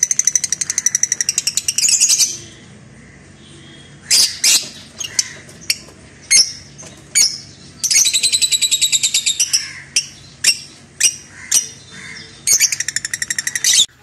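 Lovebirds calling loudly: three runs of fast, shrill chirps, about ten a second and each lasting about two seconds, with single sharp squawks scattered between them.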